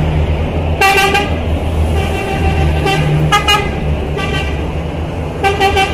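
Military trucks and an armored vehicle driving past with a steady low engine rumble, while a vehicle horn sounds in repeated short toots, about six bursts, the longest near the end.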